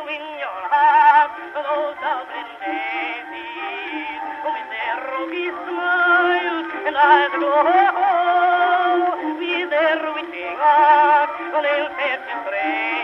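Old-time background music with a wavering, vibrato melody line. It sounds thin and tinny, with no bass or treble, like an early recording.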